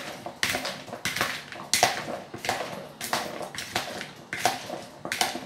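A hand tossing and scooping oil-coated cut vegetables in a plastic basin. It makes a series of short, wet clattering rustles, about seven or eight of them, roughly one every two-thirds of a second.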